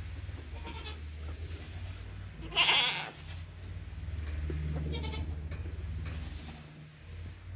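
Goats bleating: one loud bleat about three seconds in, with fainter calls before and after it, over a low steady rumble.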